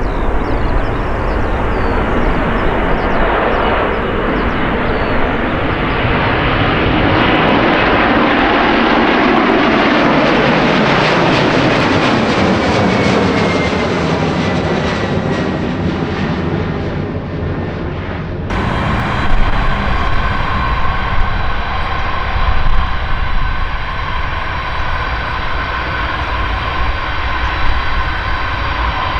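Large jet aircraft passing close by, its engine noise swelling and then sweeping down in pitch as it goes past. About two-thirds of the way through, it cuts suddenly to another jet's steady engine noise, with a high whine held at a fixed pitch.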